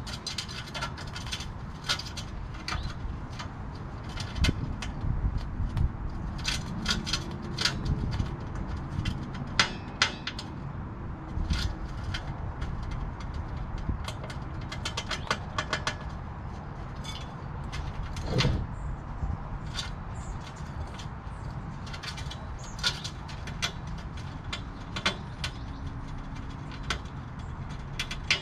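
Ground squirrel feeding on walnuts and sunflower seeds from a plate close to the microphone: irregular sharp clicks and crunches of its eating, some louder than others, over a low steady rumble.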